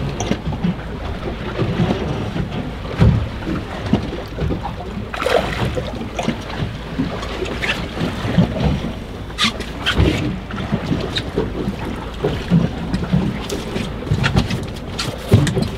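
Wind buffeting the microphone and choppy sea slapping against a small boat's hull, with irregular knocks scattered throughout.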